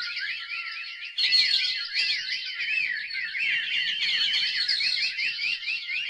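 Many small birds chirping and twittering at once: a dense, overlapping chorus of short, high, rising-and-falling chirps that grows fuller and louder about a second in.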